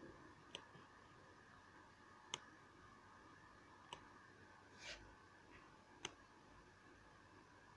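Faint computer mouse clicks, four single clicks a second or two apart, over a low steady hum; a short soft rustle comes about five seconds in.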